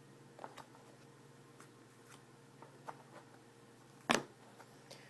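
Trading cards being handled and flipped through, making faint scattered clicks and soft rustles, with one louder sharp rustle about four seconds in.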